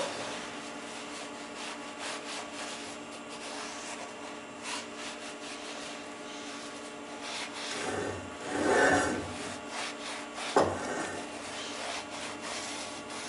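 A rag wiping and rubbing around the inside of an electric motor's bearing housing bore, clearing off excess retaining compound. The rubbing is low and continuous, grows louder for about a second and a half around eight seconds in, and is followed by a single short knock.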